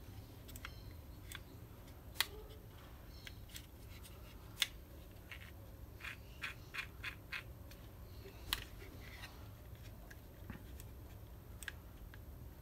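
Small plastic and metal clicks and clacks as the parts of a car door lock mechanism are handled and pressed together by hand. Single sharp clicks come about two, four and a half and eight and a half seconds in, with a quick run of about six small clacks between six and seven and a half seconds.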